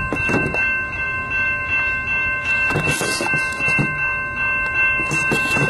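Railroad grade-crossing signal bell ringing steadily with the gates down, over the low rumble of an approaching freight train.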